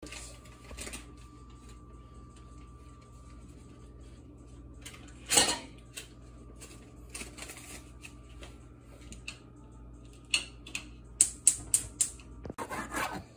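Kitchen handling noises on a countertop: a knock about five seconds in, then a quick run of sharp clicks and taps and a short rustle near the end, over a steady low hum.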